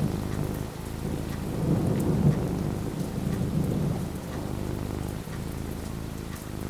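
Steady rain falling, with a low rumble of thunder that swells about two seconds in and then fades.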